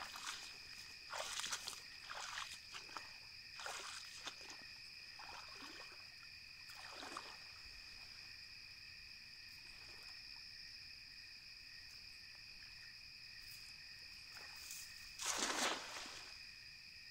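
Night insects, crickets, trilling steadily at a high pitch, with rustling steps through grass and brush over the first several seconds and one louder swishing noise lasting about a second near the end.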